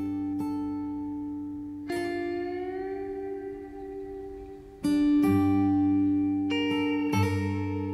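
Background music: slow guitar, chords plucked and left ringing, with a new chord struck every two to three seconds.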